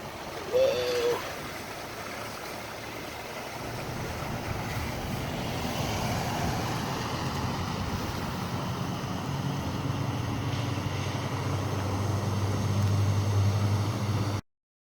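Car driving: steady road and engine noise that slowly grows louder, with a low engine hum coming up in the second half. A brief voice sound about half a second in, and the sound cuts off suddenly near the end.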